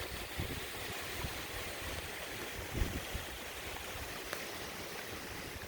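Strong thunderstorm wind blowing steadily, with gusts buffeting the microphone now and then, the strongest about three seconds in.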